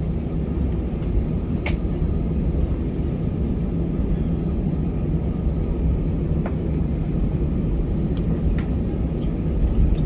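Cabin noise of an Airbus A320-214 with its CFM56 engines running on the ground: a steady low rumble and hum, with a few light clicks in the cabin.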